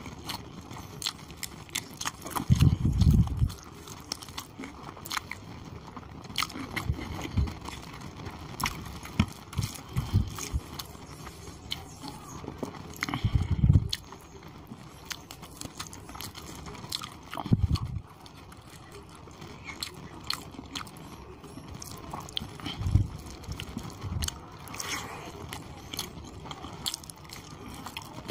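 Close-miked wet chewing and lip-smacking of someone eating rice and chicken curry by hand, with many small clicks and a few dull low thumps.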